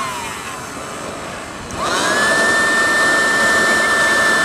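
Kolibri micro turbine jet engine whining during its start-up: the whine falls in pitch as the rotor slows, then about two seconds in it spins back up quickly to a steady high whine with a rush of air.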